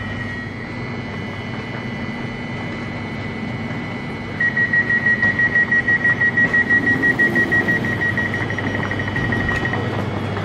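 Door-closing warning signal of a Newag Impuls 2 electric multiple unit: a high beep repeating about five times a second, starting a few seconds in and lasting about five seconds while the doors shut, over the steady hum of the train standing at the platform.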